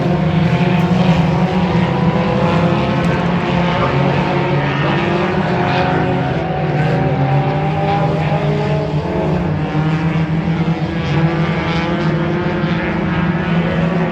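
Several race car engines running laps together on a dirt oval, a steady, loud overlapping drone whose pitches rise and fall slightly as the cars go around.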